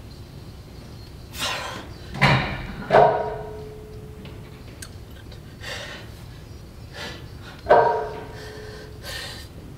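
Heavy, forceful breathing through barbell squats, with sharp metallic clanks that ring briefly, twice: about three seconds in and near eight seconds in.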